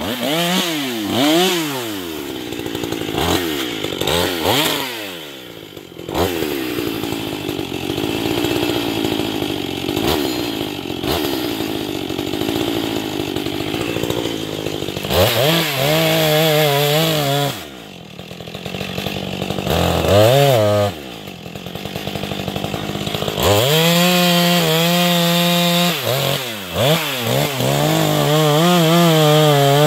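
Husqvarna 440 two-stroke chainsaw revved up and down several times in the first few seconds, then running lower for a while. It is held at full throttle in short bursts and then in a long stretch near the end, its pitch wavering as it bites into the base of a standing dead red pine.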